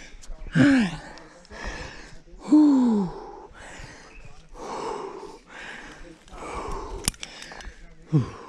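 Rock climber breathing hard with effort while climbing, a quick breath about once a second, with voiced grunts falling in pitch about half a second and two and a half seconds in and again near the end. A single sharp click about seven seconds in.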